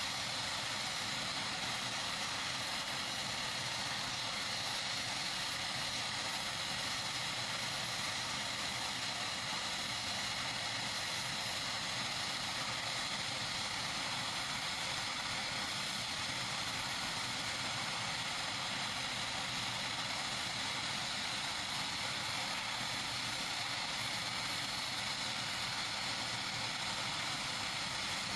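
AgustaWestland HH-101A Caesar helicopter running at ground idle, its turbine engines giving a steady hiss with a faint whine that does not change.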